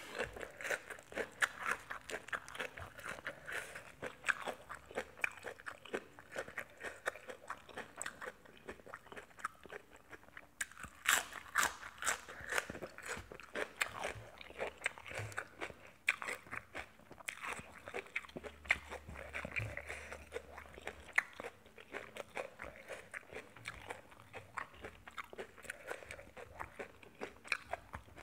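A person chewing and biting crisp food close to the microphone: a dense, irregular run of crunches that carries on throughout, loudest a little under halfway through.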